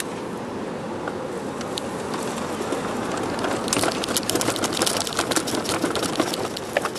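Steady city street traffic noise. From about three and a half seconds in, a dense, rapid crackling and scraping close to the microphone is the loudest sound, dying away near the end.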